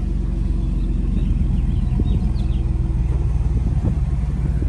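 Pickup truck engine idling with a steady low rumble.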